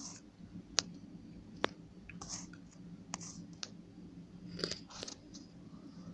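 A few sharp, light clicks and short soft rustles over a low steady hum.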